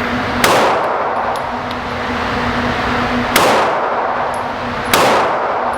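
Three shots from a SAR 9X full-size 9mm pistol, unevenly spaced: one about half a second in, then two more about 3.4 and 5 seconds in. Each is a sharp crack followed by a short ringing tail.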